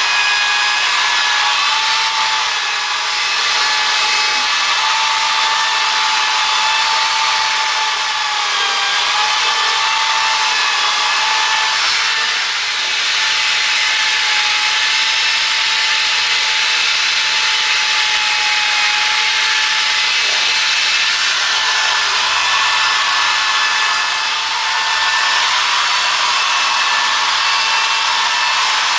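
Electric drill with a wire brush attachment running steadily, scrubbing heavy rust off a wrought-iron post: a constant motor whine over a rough scrubbing hiss, dipping slightly a few times as the brush is pressed and shifted.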